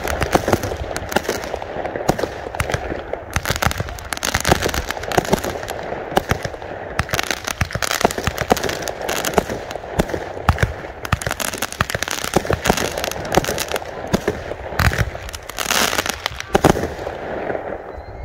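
Fireworks going off nearby: a dense, rapid run of bangs and crackles that thins out near the end.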